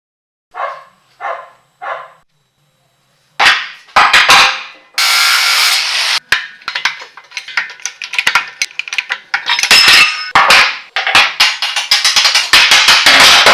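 Hand-tool work on a rusty cast-iron vise: three short light knocks, then from about three seconds in a dense run of loud knocks, clanks and scraping.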